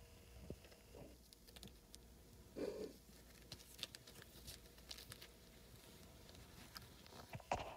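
Very faint rustling and soft scattered ticks of small kittens' paws shuffling over puppy pads and bedding, with one slightly louder rustle a little under three seconds in.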